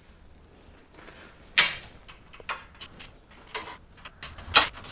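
Light clicks and knocks of small hardware being handled and fitted: an M6 button-head bolt and nut going into the door hinge bracket. The two sharpest knocks come about one and a half seconds in and near the end.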